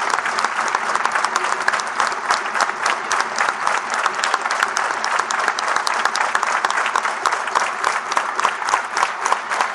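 Crowd applauding: many hands clapping steadily, with some claps sharp and close by.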